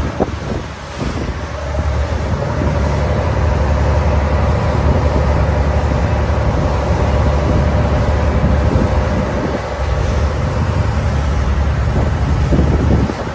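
Tour boat's engine running steadily, with wind buffeting the microphone.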